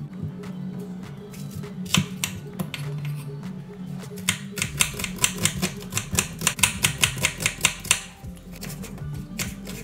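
Kitchen knife chopping a white onion on a bamboo cutting board: a couple of single knocks, then from about four seconds in a quick, even run of about four or five knocks a second as the onion is diced, stopping about eight seconds in.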